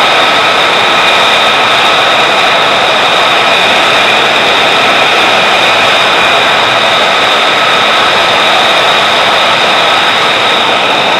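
F-35 Lightning II's Pratt & Whitney F135 turbofan idling on the ground with its engine running through hot-pit refueling. It makes a loud, steady rush with several high whining tones over it.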